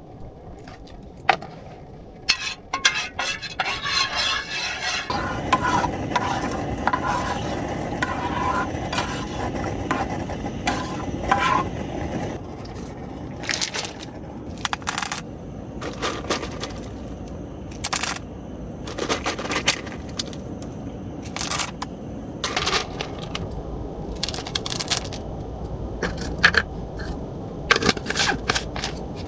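Irregular clinks, knocks and scrapes of hard objects being handled, over a steady rushing noise that gets louder about five seconds in.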